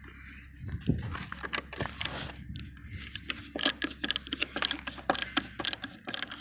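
Hand tools clicking and scraping against the rusted steel screws and rail of a car's T-top roof: a quick, irregular run of small metallic clicks that starts about a second in.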